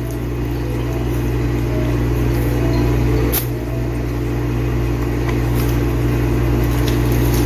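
A steady low machine hum, with a brief click about three and a half seconds in.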